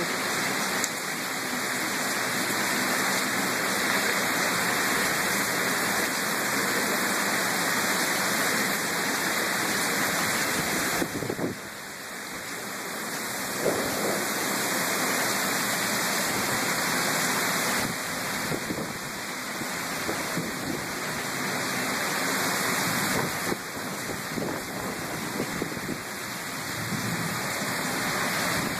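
Heavy thunderstorm rain pouring down steadily on pavement, an even rushing hiss with a brief lull about eleven seconds in.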